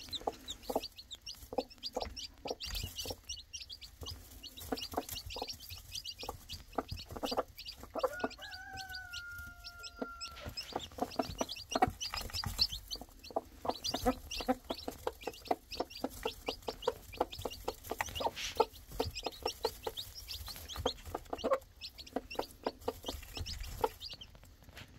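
Golden Spangled Appenzeller Spitzhauben hen clucking in quick runs to her newly hatched chicks at the feed pan, the food call that brings them to eat, with the chicks peeping high and short over it. About eight seconds in, one longer held call sounds for a couple of seconds, falling slightly in pitch.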